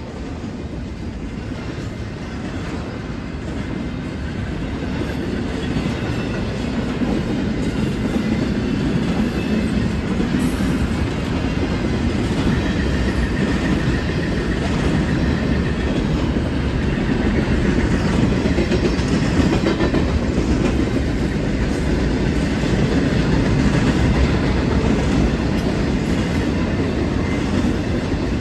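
Union Pacific intermodal freight train rolling past, with a steady rumble and the clickety-clack of wheels over the rail joints, growing louder over the first half and then holding steady.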